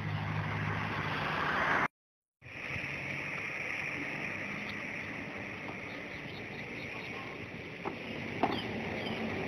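Steady outdoor background with a motor humming. The sound drops out completely for about half a second around two seconds in, then returns as an even high hiss with a few faint short chirps near the end.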